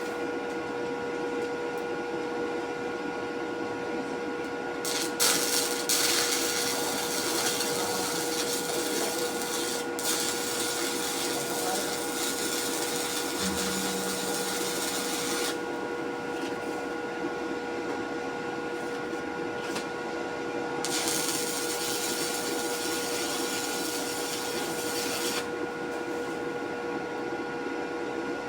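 A steady machine hum with several fixed tones runs throughout. Over it come two long stretches of loud, even hiss: one starts about five seconds in and lasts around ten seconds, the other starts about twenty-one seconds in and lasts about four seconds.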